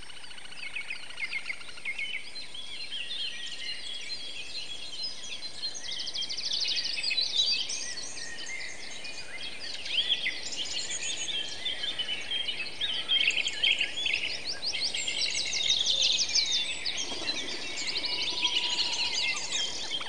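Chorus of songbirds singing: many overlapping chirps and fast trills, with several birds calling at once.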